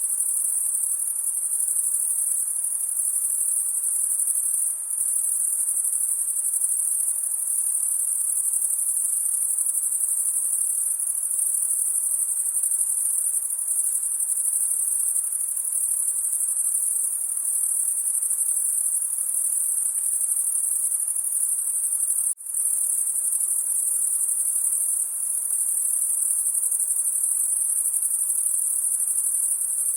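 Summer-night chorus of crickets: a dense, steady, high-pitched trill with a faint lower background hum. It drops out for a split second about two-thirds of the way through.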